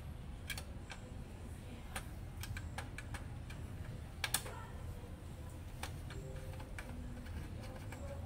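Irregular light clicks and taps of a long screwdriver against the metal and plastic parts inside an opened HP LaserJet M26a printer, about ten in all at uneven spacing, the sharpest about four seconds in, over a steady low hum.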